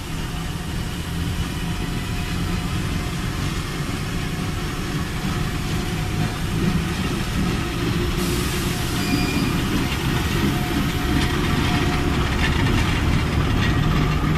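Two-section VL11.8 electric locomotive hauling a passenger train slowly out of the station: a steady hum from its motors and fans over wheel and rail rumble. It grows gradually louder, and a higher hiss joins about halfway through as the locomotive's rear and the first coaches pass.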